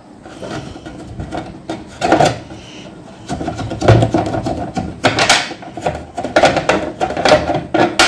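Screwdriver turning screws out of a washing machine's plastic control panel: a run of irregular clicks, creaks and scrapes of the tool and screws against the plastic, busier from about three seconds in.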